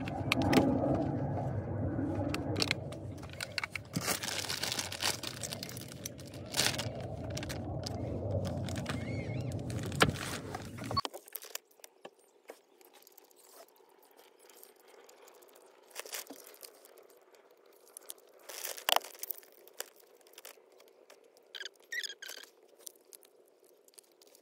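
Plastic food bag and container crinkling and clicking as they are handled, with small crunches and cracks as an egg's shell is cracked and peeled. A steady low hum runs under the first half and cuts off abruptly about eleven seconds in, leaving only quiet, scattered handling sounds.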